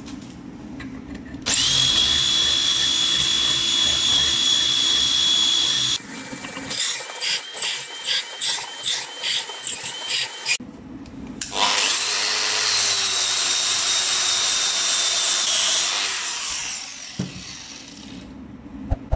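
Handheld electric drill running. It gives a steady high whine for several seconds, then a series of short pulses about twice a second, then a second long run that spins up and winds down near the end.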